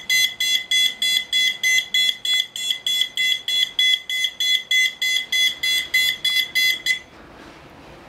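Electronic alarm sounder of a home-built severe weather alarm system, triggered through a weather radio's external-alert relay. It beeps rapidly and evenly at a high pitch, about four beeps a second, then stops abruptly about seven seconds in.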